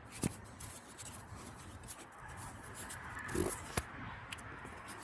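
Screwdriver turning a screw into the sheet-metal wiring cover of an electric motor: small metal clicks and scraping, with a few sharper ticks.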